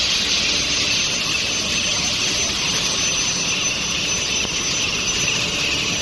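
Steel-bar induction quenching and tempering line running: a steady, loud hiss over a machinery din, with a faint high steady whine.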